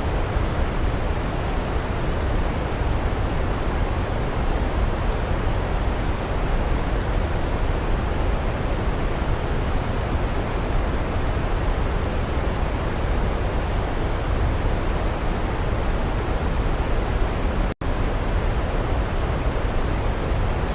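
Waterfall rushing steadily, a deep, even wash of falling water with no distinct events. It cuts out for an instant about three seconds before the end.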